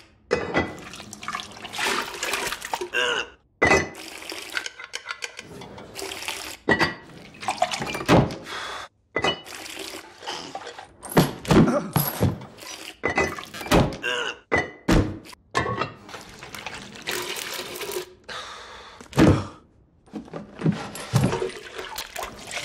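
A rapid run of chore sounds cut close together: wooden and metal thunks and clunks, with water sloshing and pouring between them.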